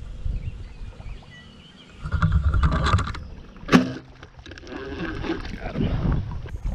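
A bowfishing bow shot once, a sharp snap with a brief low twang of the string about two-thirds of the way through. Around it, water sloshing and splashing from wading through knee-deep flooded grass.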